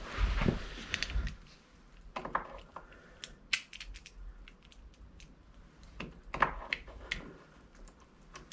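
Small metal door-latch parts clicking and tapping together as they are handled, in short irregular clicks.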